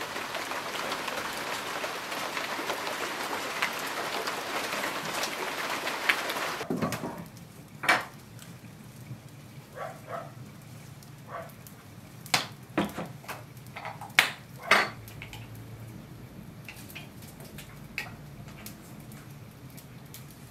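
Steady rain falling on garden foliage, which cuts off suddenly about seven seconds in. After it, scattered clinks and knocks of a spoon against a metal mixing bowl and glass jars, over the low sound of a wood fire.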